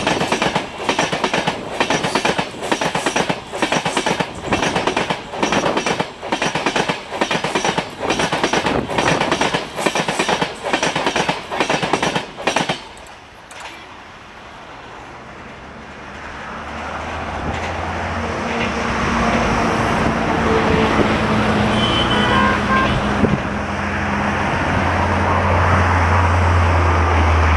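Passenger coaches rolling past at speed, their wheels knocking over the rail joints in a quick, even clickety-clack. This stops suddenly about thirteen seconds in as the last coach goes by. A motor vehicle's engine hum then rises and grows steadily louder toward the end.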